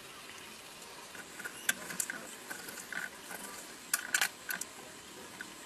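Knife scoring a green pomelo's thick rind and the peel being pried apart: a scatter of short, sharp crackles and snaps, thickest between about two and four and a half seconds in.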